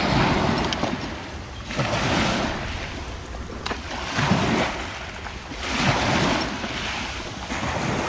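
Small sea waves breaking and washing over a pebble shore, swelling and ebbing in surges about every couple of seconds.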